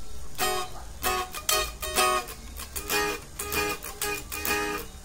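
Single-cutaway Les Paul-style electric guitar played in chords, struck about twice a second, each chord ringing briefly before the next.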